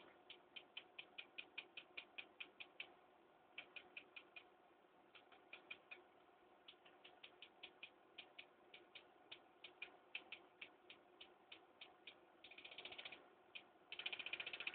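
A 3½-inch floppy drive's stepper motor stepping in single ticks, about six a second, in runs with short pauses. Near the end it steps fast enough to make a continuous buzz.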